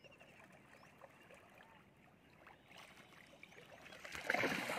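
Hooked catla fish thrashing at the surface near the bank. Faint water sounds at first, then a louder splash of churned water about four seconds in.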